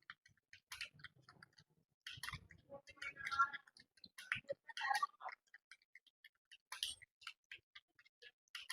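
Computer keyboard keys clicking as someone types: faint, irregular keystrokes, some in quick little runs.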